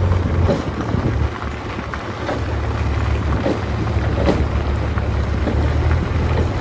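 Heavy diesel engine running steadily at a low pitch, with several short knocks and scrapes spread through, as of a backhoe loader at work.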